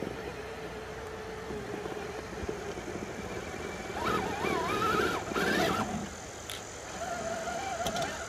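Axial SCX6 Jeep Wrangler Rubicon RC crawler's electric motor and geared drivetrain whining as it crawls up a rock ledge. From about four seconds in, the whine gets louder and wavers up and down with the throttle for a couple of seconds as the truck climbs over the top, then settles.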